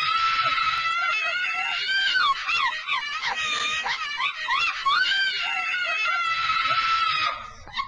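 A high-pitched vocal shriek, long and held, wavering with swoops up and down in the middle, that cuts off near the end.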